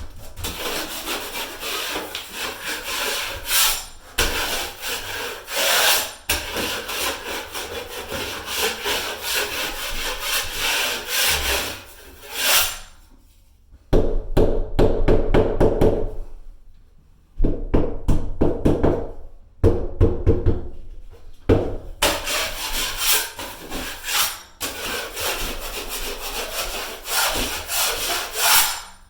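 Drywall knife scraping joint compound across a drywall patch: a series of long, rasping strokes with short pauses between them.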